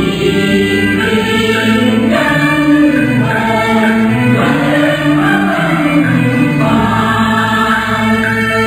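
A large choir singing a Cantonese opera tune (xiaoqu), in held notes that move from pitch to pitch.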